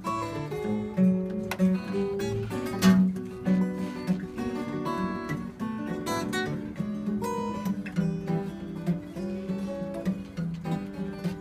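Two acoustic guitars playing a tune together, picked, with a steady repeating bass note pattern under the melody.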